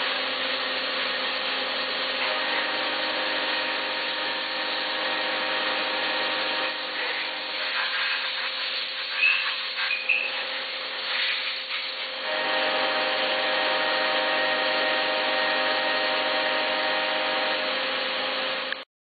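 2001 Mazak VTC250-50 CNC vertical mill running: a steady machine whine with several held tones over a hiss. A few seconds in, the tones fade and give way to irregular clattering with two brief squeaks. About halfway through, the steady whine returns, then it stops suddenly just before the end.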